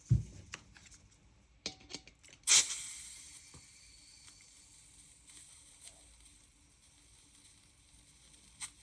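Gas hissing from a Swiss Arms silicone-free gas can into a Krytac Kriss Vector gas blowback airsoft magazine as it is filled. A few small clicks come first, then about two and a half seconds in a steady hiss starts suddenly and lasts about six seconds.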